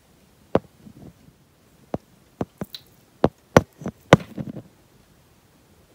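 A run of about eight sharp clicks and knocks, irregularly spaced, with soft rustling between them: a phone being handled and bumped against a microscope eyepiece while it is lined up.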